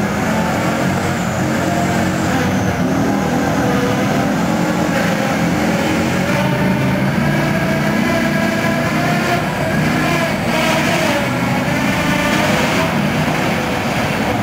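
Tracked armoured infantry fighting vehicle driving, its engine running steadily under load with the pitch shifting up and down.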